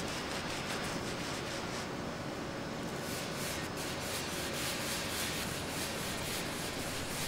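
Two flat boards slid back and forth by hand over thin brass rods on a wooden bench, a fast run of short rubbing, scraping strokes that grows busier in the second half.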